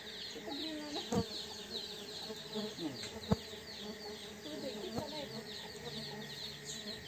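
Chickens clucking against a steady, fast-pulsing high chorus of insects. There are two sharp knocks, about a second in and more loudly past three seconds.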